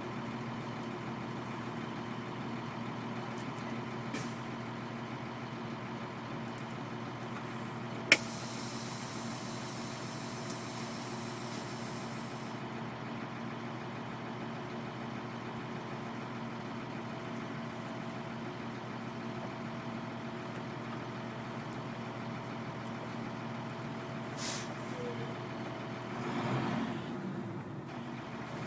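Heavy military truck diesel engine idling steadily. About eight seconds in a sharp click is followed by a hiss of air lasting about four seconds, typical of an air-brake release. Near the end the engine note swells as a vehicle moves off.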